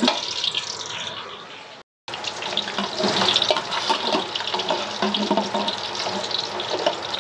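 Whole spices (star anise, cinnamon sticks, bay leaves and cumin seeds) sizzling in oil over medium heat, fried until they give off their aroma, while a steel ladle stirs them against the bottom of a metal pot with small scraping clicks. The sizzle fades over the first two seconds, cuts out briefly, then comes back steady.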